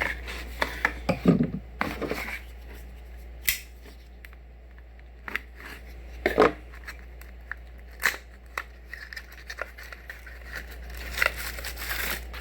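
Handling sounds of a folding pocket knife and its packaging: a scattered series of sharp clicks with light scrapes and rustles in between.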